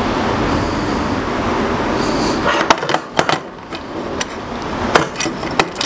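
Incra LS router fence positioner being worked on the router table top: a steady scraping and rubbing for about two and a half seconds, then several sharp metal clicks and knocks as it is set in place.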